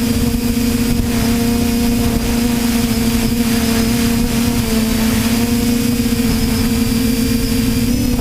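TBS Discovery quadcopter's electric motors and propellers whining steadily in flight, the pitch wavering only slightly, over a heavy low rumble of wind on the microphone.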